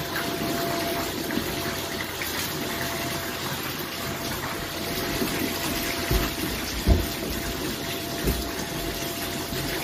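Steady rushing airliner cabin noise with a faint steady tone through it, and a few dull low thumps in the second half.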